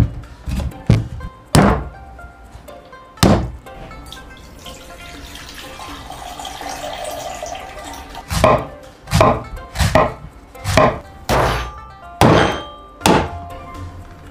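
A cleaver chops several times into the husk of a young coconut on a wooden board. Then coconut water pours in a steady stream into a glass measuring jug. Then comes a run of about eight sharp knocks, roughly one every half second, as the shell is cracked open. Soft music plays underneath.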